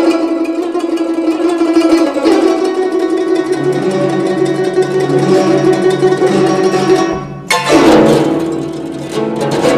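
Solo guzheng being played: a fast-repeated note held over a pulsing lower figure, then a loud burst of hard plucked and strummed strings about three-quarters of the way through.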